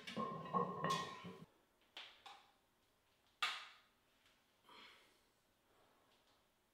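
Plate-loaded leg extension machine clanking through a rep, with a steady ringing tone, for about a second and a half. Then a few light knocks, one sharp clack about three and a half seconds in, and heavy breathing during sissy squats.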